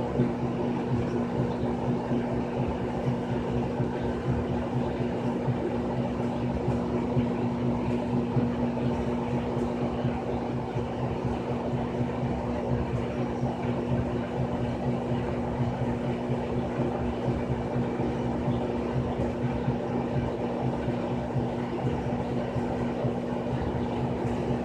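Frigidaire Gallery Series top-load washing machine running, a steady motor hum with a low whir that does not change.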